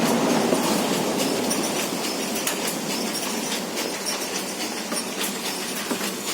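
Motorcycle rear wheel and drive chain turning over the sprockets: a steady rattle with small ticks that slowly fades as the wheel runs down.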